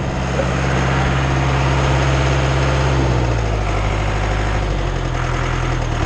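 Schwing BPA750 trailer concrete pump's engine running steadily; its note drops slightly about three seconds in.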